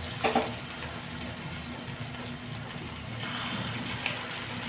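Hot oil sizzling steadily as potato-and-minced-meat patties shallow-fry in a wok, with one brief louder burst about a third of a second in.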